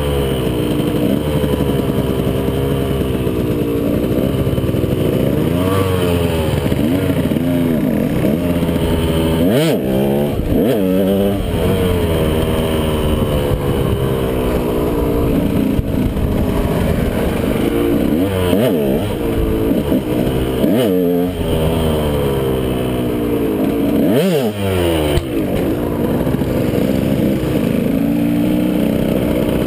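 KTM 125 SX two-stroke single-cylinder dirt bike engine under way, revving up and down. Its pitch keeps rising and falling with the throttle, with a few quick sharp drops and climbs, about a third of the way in and again near two-thirds and toward the end.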